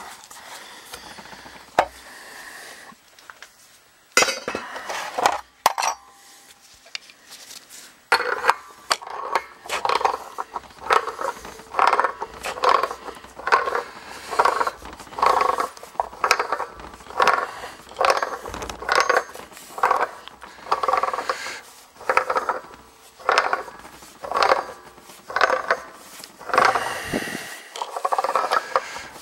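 Pipe wrench tightening a brass fitting onto an electric water heater's threaded nipple, metal scraping and clinking on metal. A few scattered clinks and knocks come first; from about eight seconds in there is a steady run of short scraping strokes, a little more than one a second, as the fitting is turned tight.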